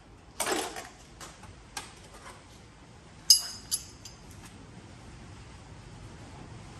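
Small pieces of scrap metal clinking and clattering as they are sorted by hand: a clatter about half a second in, a few light clicks, then a sharp ringing metal clink a little after three seconds and a lighter one just after it.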